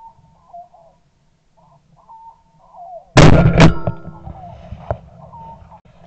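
Short, repeated calls of a partridge or francolin, then about three seconds in two very loud gunshot cracks about half a second apart. The birds' calling goes on faintly afterwards, with a fainter click about a second after the shots.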